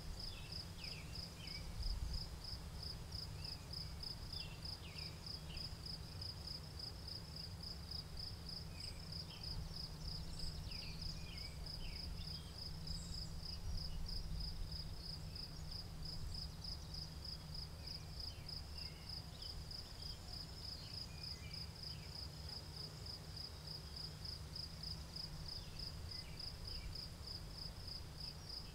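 Crickets chirping in a steady, evenly pulsed high trill, with short scattered bird chirps and a low rumble underneath.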